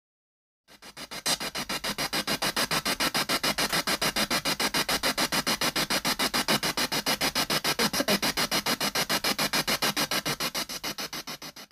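Spirit box sweeping through radio stations: static chopped into rapid, even bursts several times a second. It starts just under a second in and cuts off abruptly at the end.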